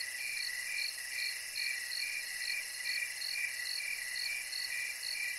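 Cricket chirping sound effect: a steady run of short, even chirps, about two to three a second, over a high hiss. It is the comic 'crickets' cue for the awkward silence after a bad joke.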